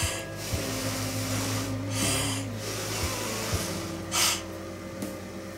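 A person blowing on a hot forkful of chicken and noodles to cool it: three short breathy puffs about two seconds apart, the last the loudest.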